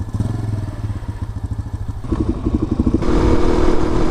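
Motorcycle engine running under way, a rapid pulsing note that steps up and turns louder and steadier about three seconds in, as the throttle is opened.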